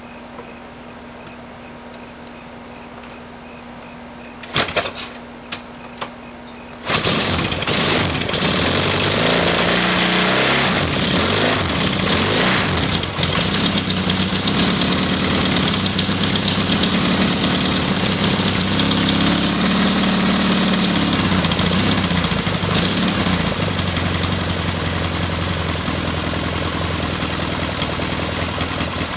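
1975 Yamaha XS650's air-cooled parallel-twin engine starting after a few short knocks, catching about seven seconds in. It runs unevenly at first, its speed rising and falling a couple of times, then settles to a steadier idle near the end.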